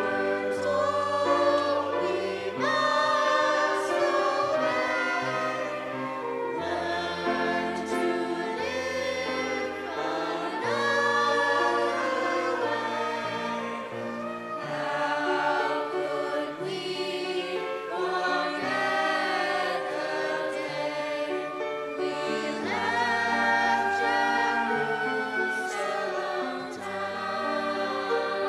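A choir singing a song over instrumental accompaniment with held bass notes.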